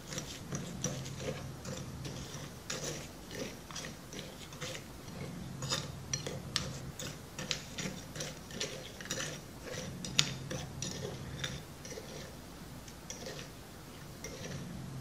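Metal spoon stirring and scraping through a thick wet grey mix in a ceramic plate, with irregular clinks and scrapes of the spoon against the plate, several a second.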